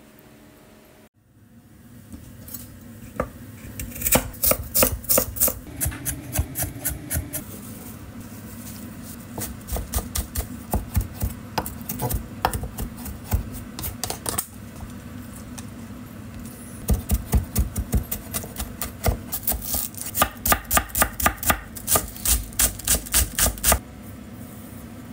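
Kitchen knife chopping shiso leaves and then green onions on a wooden cutting board: quick runs of several sharp strokes a second, broken by short pauses.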